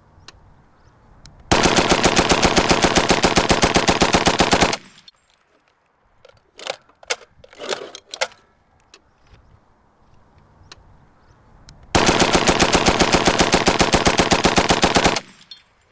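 Water-cooled .303 Vickers Mark 1 machine gun firing two bursts of about 25 rounds each at its normal rate, roughly seven shots a second and about three seconds per burst. The bursts are some eight seconds apart, with a few sharp clicks in the pause between them.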